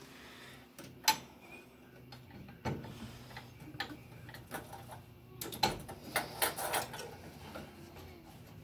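Scattered clicks and light knocks as the long toothed turret belt is worked off its pulley on a 1958 Brunswick A2 bowling pinsetter. There is a sharp click about a second in and a quick run of clicks past the middle.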